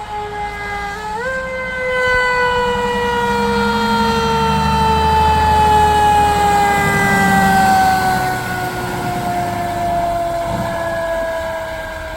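Fire truck siren sounding one long tone that steps up in pitch about a second in, then falls slowly and steadily, like a siren winding down, over a low rumble of the passing truck that is loudest in the middle.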